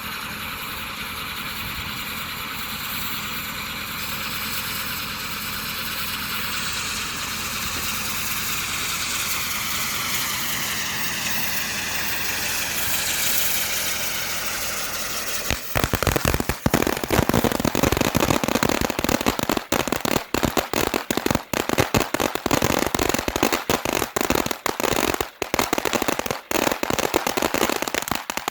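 Ballerina's Ball spinning fountain firework burning: a steady hiss with a whistling whine that drifts in pitch as it spins. About halfway through it switches abruptly to loud, dense crackling that goes on to the end.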